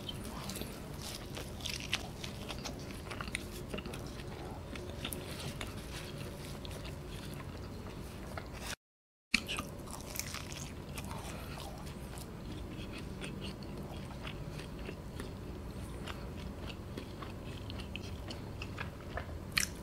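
Close-miked chewing and biting of Domino's Mega Cheese pizza crust: wet mouth clicks and small crunches of the hard crust, broken by a moment of silence about nine seconds in.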